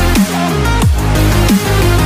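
Background electronic dance music with a heavy bass line and a falling pitch sweep roughly every two-thirds of a second.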